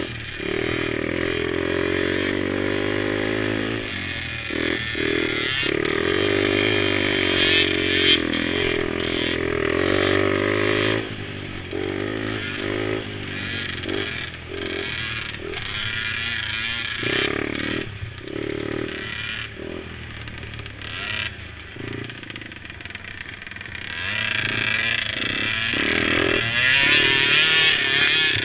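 Mini quad engines running on a track, revving up and easing off over and over, the pitch rising and dropping with each throttle change and the sound growing louder again near the end.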